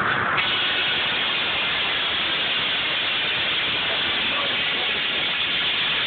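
Water-powered sawmill's saw cutting through a log on the carriage: a steady, loud hissing rasp that turns brighter about half a second in.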